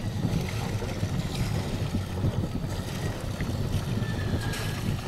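Wind buffeting the microphone, with a steady low rumble underneath.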